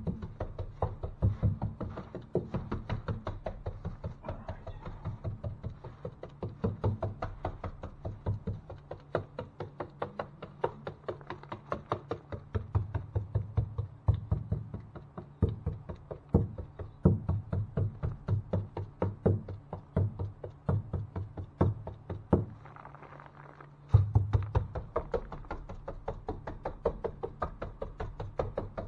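Rapid, uneven knocking, several knocks a second, with a brief pause near the end, over background music with a low bass line.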